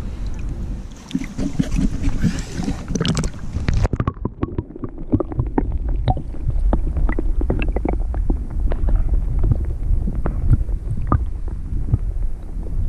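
Outdoor river ambience: wind buffeting the microphone with a steady low rumble, and many small irregular splashes and clicks of moving water. About four seconds in, the high hiss drops away.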